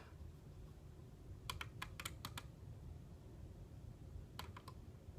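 Faint, light clicks and taps in quick clusters: about six close together around a second and a half in, then three more near the end.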